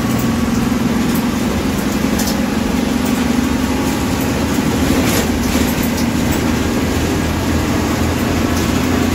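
MSRTC bus heard from inside the cabin while driving, its diesel engine running with a steady hum over road and body noise.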